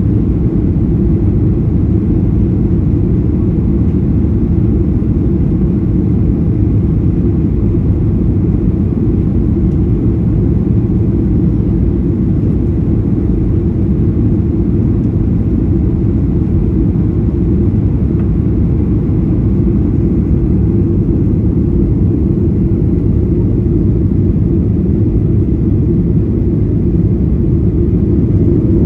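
Steady, deep rumble of a Boeing 737-800's CFM56 jet engines and airflow heard inside the passenger cabin, even throughout with no changes.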